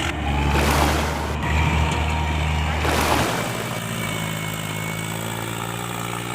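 Heavy vehicle engine running steadily, a deep low note that drops out about three seconds in, leaving a higher steady hum.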